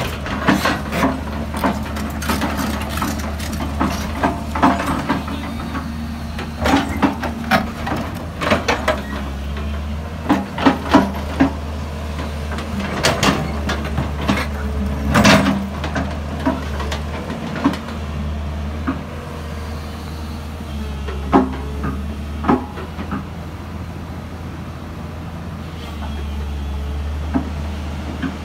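Hyundai 230 excavator's diesel engine running with a steady low drone, with frequent sharp knocks and clanks from the bucket and machinery working against a granite block. The knocks come thick and fast through the first half and only now and then later on.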